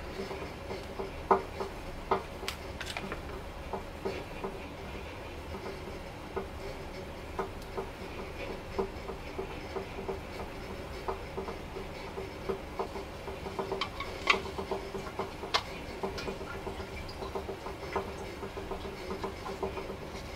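Scattered light clicks and knocks of small metal-cased DC motors and a plastic gear housing being handled, over a steady hum.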